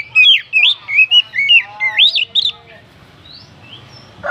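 Oriental magpie-robin (kacer) singing a fast run of varied whistled notes, slurs and chirps for about two and a half seconds, then only a few faint notes.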